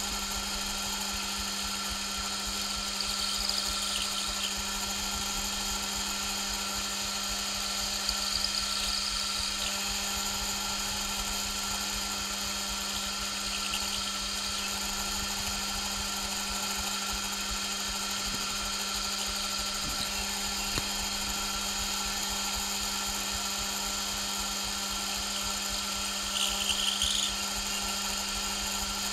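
Metal lathe running and turning aluminium stock as the cross-slide is fed by hand: a steady machine hum with several steady tones. Brief higher scraping sounds come a few seconds in, about eight seconds in and near the end.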